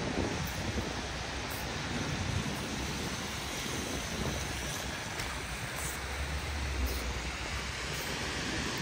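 City street in the rain: a steady hiss of rain and wet road with traffic going by, and a low rumble from a passing vehicle swelling about two-thirds of the way through.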